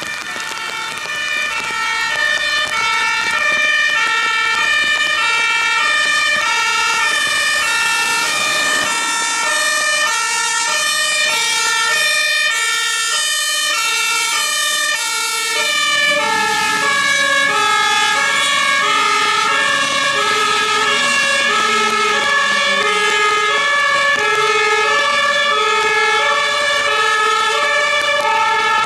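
Fire engine's German two-tone siren (Martinshorn) sounding its alternating high-low tones continuously as the truck drives past on a wet road. About halfway through, the tones drop in pitch as it passes.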